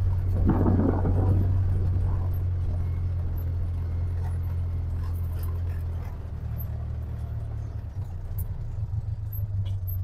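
Side-by-side utility vehicle's engine running with a steady low drone, with a brief louder rattling noise about a second in; the engine note turns rougher and uneven about six seconds in.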